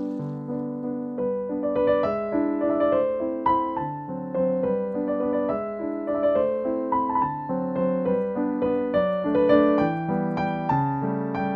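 Background piano music: a gentle melody of single struck notes stepping up and down over lower sustained notes.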